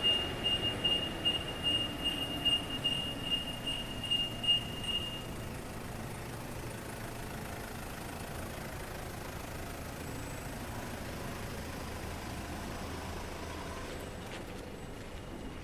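Automatic car wash running: a high electronic warning beep repeats about twice a second over a steady machinery hum. The beeping stops about five seconds in and the hum carries on.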